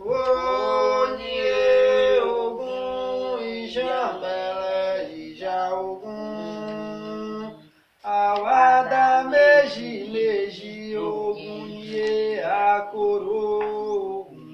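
Singing of an Afro-Brazilian chant (cantiga) for the orixás, breaking off briefly about eight seconds in and then going on.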